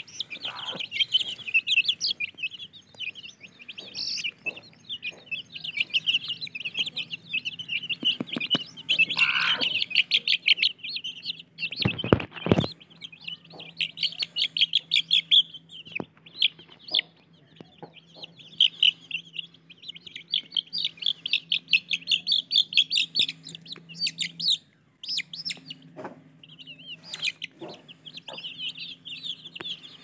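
Aseel chicks peeping rapidly and without let-up, high and shrill, with the mother hen clucking among them. A brief thump about twelve seconds in.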